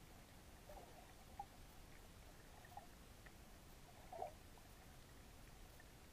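Near silence of an underwater recording: a faint steady low hum and hiss, with four brief soft pops, the loudest a little over four seconds in.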